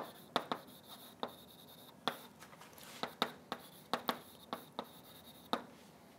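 Chalk writing on a chalkboard: a string of sharp, irregular taps and short scrapes as a formula is written, the last tap about five and a half seconds in.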